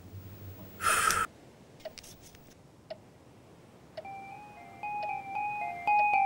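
A match struck once about a second in, a short, sharp scrape, followed by a few faint ticks. About four seconds in, a sparse melody of bell-like keyboard notes begins, stepping between a low and a high line.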